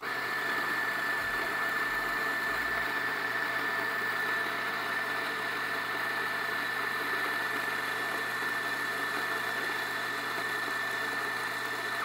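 Fiorenzato All Ground flat-burr espresso grinder running steadily, grinding the last beans at its finest, Turkish-fine setting, with a steady high whine over the grinding noise. It starts at once when the button is pressed and cuts off suddenly after about twelve seconds; the last beans bounce in the hopper for a while, known as popcorning.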